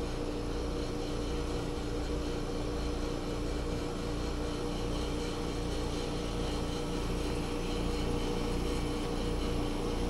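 Trane 17 SEER two-stage heat pump outdoor unit running steadily in heating mode: a constant compressor hum with two held tones under the even rush of the unit running.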